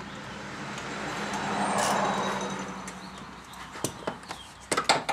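A passing vehicle: its rushing tyre and road noise swells over about two seconds and fades away. Near the end come a few sharp clicks and knocks.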